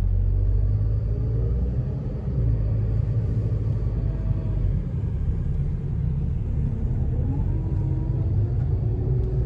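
Steady low road rumble from inside a moving car: engine and tyre noise while driving, with a faint whine that rises in pitch about seven seconds in.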